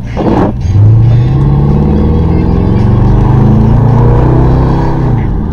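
Car engine accelerating from a stop, heard from inside the cabin, its pitch climbing slowly for several seconds and easing off near the end. A brief rushing noise comes just before the engine picks up.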